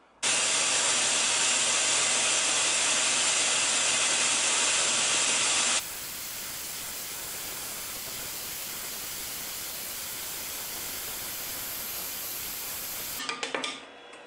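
Scroll saw running with its blade cutting through 6 mm plywood: a steady hissing noise with a faint motor hum under it. About six seconds in the sound changes abruptly to a quieter, thinner hiss of sawing.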